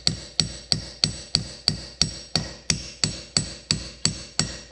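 Ball-peen hammer tapping on the metal handle of a bearing and seal driver, a steady run of light taps about three a second, each with a short metallic ring. The taps are driving a thin metal trim bushing into the outboard's bracket.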